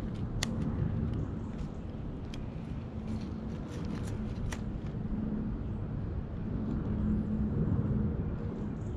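Steady low rumble of wind on the microphone, with a handful of sharp clicks and snaps in the first half.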